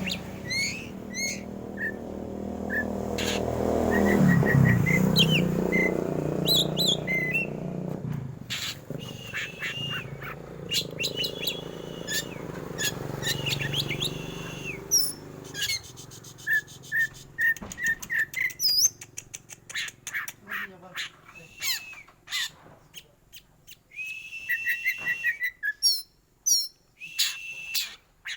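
Black oriental magpie-robin (kacer hitam) singing a varied, fast song: sharp chirps, runs of short repeated notes, rapid clicking notes and several held whistles. A low rumble of background noise runs under the song for the first several seconds, then fades away.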